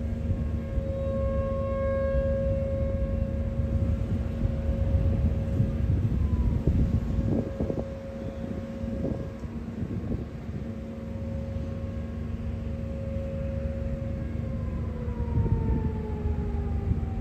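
Outdoor tornado warning siren sounding one long steady wail, its pitch falling near the end as it winds down. A loud low rumbling noise runs underneath.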